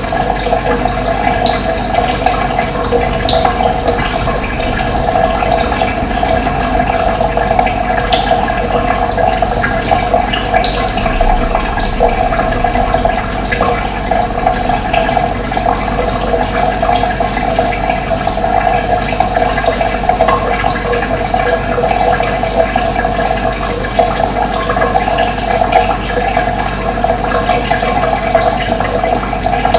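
Running water, a steady rushing and gurgling flow, with faint short bird chirps now and then.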